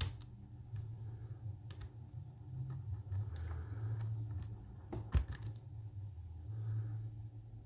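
Metal lock pick working the pins of a lock held under a tension wrench: small irregular clicks and scrapes as pins are probed and set, with one louder knock about five seconds in.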